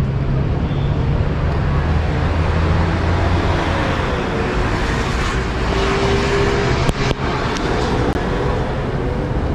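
Steady city traffic noise, with the low hum of passing vehicle engines in the first few seconds and a couple of sharp clicks about seven seconds in.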